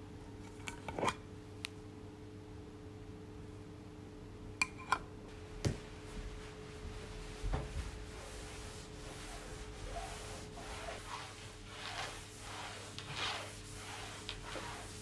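A few sharp clicks from a metal tin being handled and opened, then a cloth rubbed across a wooden tabletop in repeated wiping strokes, about one to two a second.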